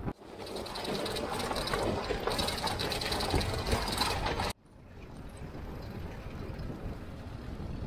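Land Rover driving over a stony dirt track: the engine runs while the tyres crunch on gravel and the body rattles. About four and a half seconds in it drops suddenly to a quieter, steady engine and road noise.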